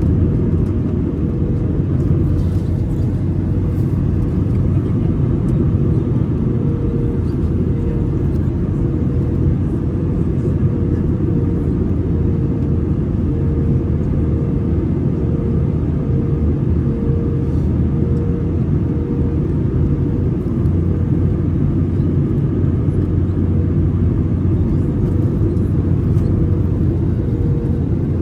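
Airbus A320 cabin noise in flight: a steady low rumble of engines and rushing air, with a faint hum that pulses evenly beneath it.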